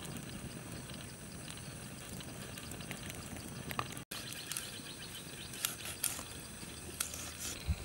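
Steady outdoor background noise with a few faint, sharp clicks scattered through it, most of them in the second half. The sound cuts out for an instant about halfway through.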